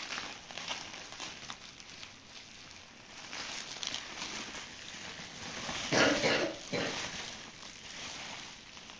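Bubble wrap crinkling and rustling as hands pull it off a box, with a brief louder sound about six seconds in.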